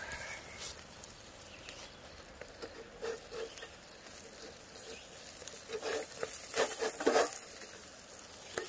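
Whole trout grilling over hot charcoal, crackling in scattered small pops as juices drip onto the coals. In the second half a few louder clicks and scrapes come from metal spatulas being worked under the fish against the grate.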